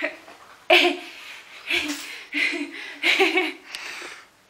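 A woman laughing in several short bursts, close to the microphone.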